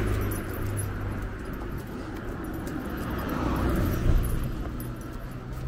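A motor vehicle going by on the road: a low engine hum and tyre noise that swell to a peak about four seconds in, then fade.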